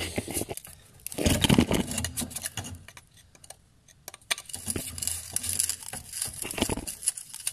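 Handling sounds under a car: rustling and scraping with light metallic clicks as a screwdriver works at the metal clamp holding an old fuel filter. There is a louder rustling burst about a second in, then a lull, then a string of clicks and scrapes.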